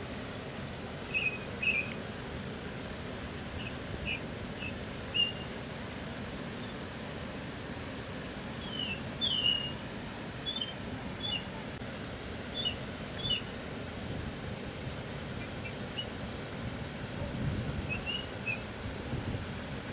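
Small birds chirping: short high chirps every second or two, scattered lower chirps, and a rapid buzzy trill repeated every few seconds, over a steady low background noise.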